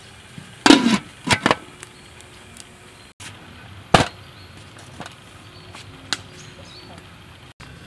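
Short knocks and clanks of a metal cooking pot and its lid being handled: a clatter about a second in, two quick clicks just after, and one sharp knock about four seconds in.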